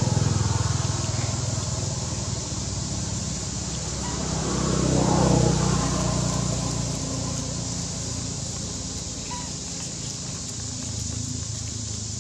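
Low, steady engine hum from a motor vehicle in the background, swelling louder about five seconds in and fading again.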